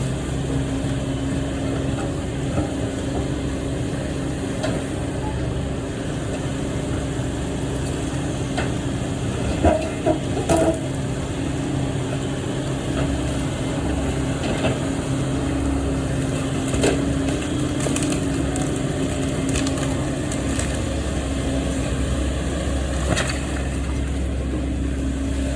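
A heavy machine's engine runs steadily while timber from a house wall cracks, splinters and crushes. The loudest cracks come about ten seconds in, with more snaps later.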